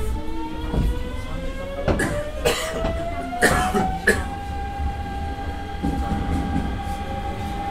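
Hanshin 9000 series electric train heard from on board, accelerating: the traction motor whine rises in pitch for about four seconds, then holds steady over the low rumble of the running gear. Several loud knocks from the wheels come between about two and four seconds in.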